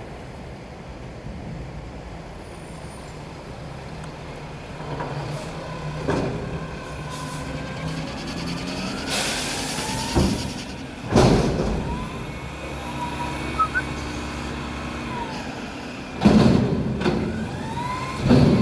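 Mack garbage truck with a McNeilus front-loader body: the diesel engine runs steadily, a loud burst of air-brake hiss comes about halfway, whining pitches rise and fall, and loud bangs come a little past halfway and twice near the end.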